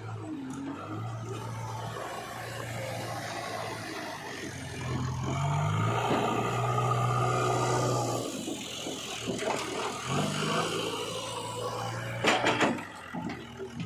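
Engine of a backhoe loader or tractor running steadily. Its pitch steps up briefly about a third of the way in and again about two-thirds of the way in. Near the end comes a short burst of loud clattering knocks.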